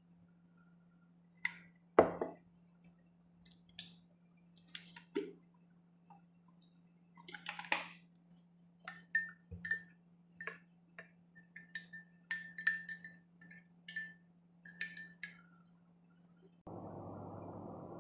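Scattered clinks and knocks of kitchenware, utensils tapping glass and dishes, several ringing briefly, over a faint steady hum. Near the end a steady hiss starts abruptly.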